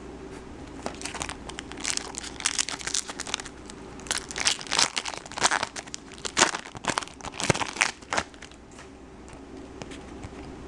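Foil trading-card pack wrapper being torn open and crinkled, a run of irregular crackling rustles that dies down about three-quarters of the way through.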